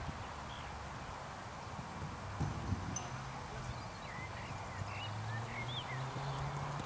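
Open-air ambience with a steady wash of wind noise and small birds chirping several times, mostly in the second half. A couple of dull knocks come about two and a half seconds in, and a low hum rises slightly in pitch over the last few seconds.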